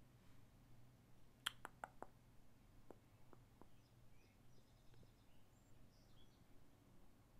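Near silence with a low steady hum. A quick run of four clicks comes about one and a half seconds in, followed by a few fainter single clicks, the sounds of working a computer.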